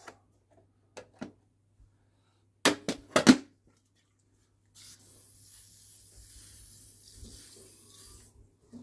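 WD-40 aerosol can spraying in one steady hiss of about three and a half seconds, starting about five seconds in. Before it come a few clicks and a cluster of sharp knocks as tools and the can are handled.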